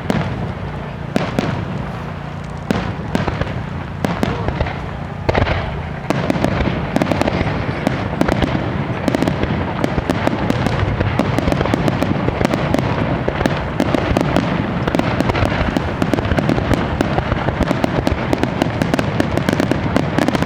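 Fireworks star mine barrage: aerial shells bursting in quick succession. For the first six seconds the bangs come separately, then they thicken into a dense, continuous run of overlapping booms and crackle.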